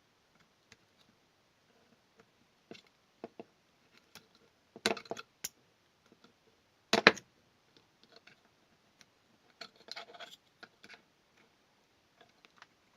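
Hand tool cutting at a plastic power-supply plug: scattered clicks and scrapes, with two loud snaps about five and seven seconds in and a quick run of clicks near ten seconds.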